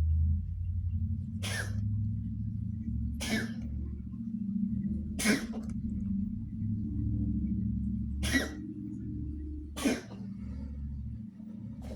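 A cat coughing: five short, sharp coughs at irregular gaps of a second and a half to three seconds, over a steady low hum. The repeated coughing is what the owner suspects may be feline asthma.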